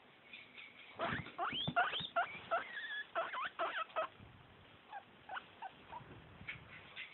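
Guinea pig wheeking: a quick run of high, rising squeals starts about a second in and is loudest over the next three seconds, then shorter, fainter calls follow. This is the guinea pig's begging call for food.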